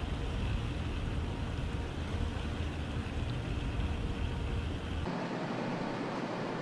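Steady outdoor ambient rumble and hiss with no clear single source. About five seconds in it switches abruptly to a thinner hiss with a faint steady hum.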